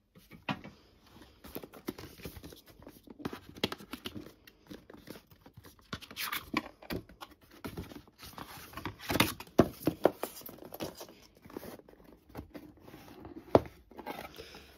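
Cardboard headphone packaging being handled: the printed outer sleeve slid off and the stiff inner box lifted and opened, giving irregular scrapes and rubs of card on card with taps and knocks of the box, one sharp knock near the end.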